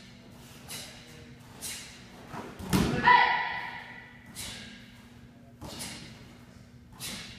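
Two martial artists performing a Tang Soo Do form together: sharp snapping strikes, roughly one a second. About three seconds in, a heavy stomp on the mat comes with a loud shouted kiai, the loudest sound.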